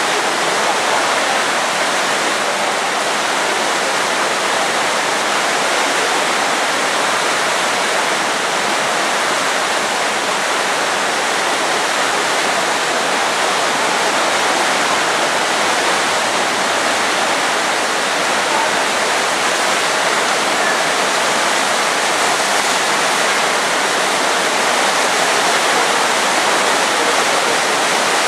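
Whitewater rapids of a canoe slalom course rushing loudly and steadily.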